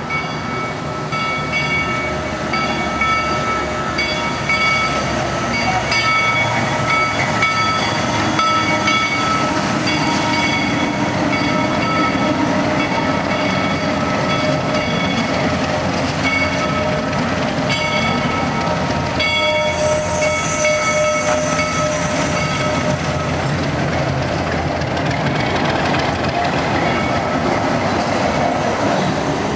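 Narrow-gauge steam train passing slowly through a rail yard, its cars rolling and clattering over the track with a ringing tone over the noise. It grows louder over the first few seconds as it approaches, then stays steady.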